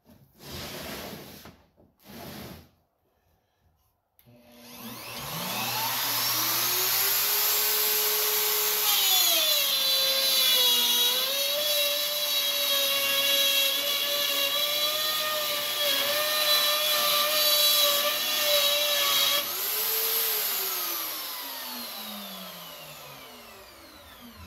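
Plunge router cutting plywood: after two short handling noises, the motor starts about four seconds in with a rising whine as it spins up, then runs steadily through an edge-to-edge arc cut in 11/32 plywood. Its pitch dips slightly as the bit bites into the wood. Near the end it is switched off and winds down with a falling whine.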